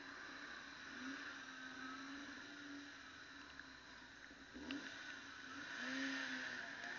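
Motorcycle engine running at low speed in traffic, its note rising and falling with the throttle and climbing near the end, over a steady hiss.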